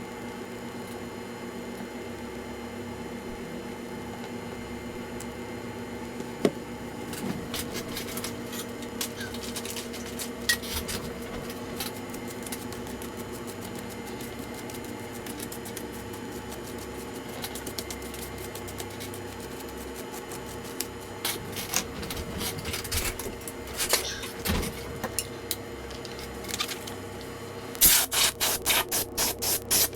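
Small clicks, taps and rubbing of hands and tools working on a laptop's plastic and metal parts, over a steady electrical hum, with a quick run of clicks near the end.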